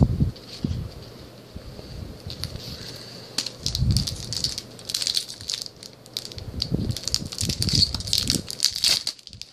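Duel Masters booster pack's foil wrapper being handled and opened, crinkling with dense, irregular crackles that get busier from about three and a half seconds in, with a few soft thumps of handling.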